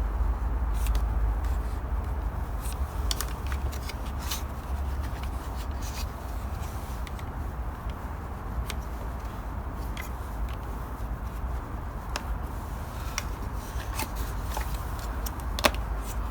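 Screwdriver prying around the plastic rear cover of a Hyundai Solaris heater blower motor. Scattered sharp clicks and scrapes of plastic and metal, with the loudest click near the end, over a steady low hum.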